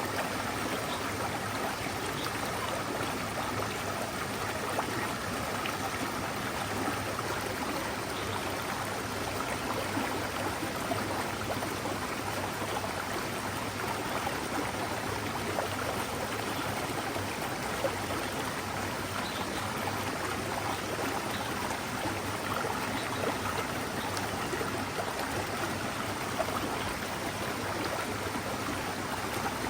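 A forest mountain stream flowing, a steady, even rush of water with some gurgling.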